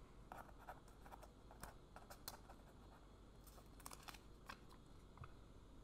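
Near silence with faint, irregular small clicks of jigsaw puzzle pieces being handled and set down on a cardboard board.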